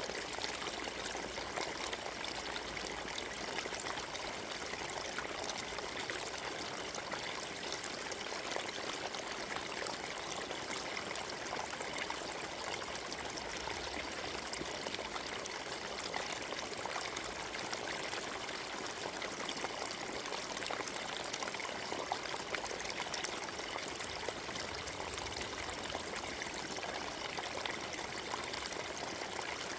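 Forest stream running steadily, water splashing and trickling over stones in a continuous even rush.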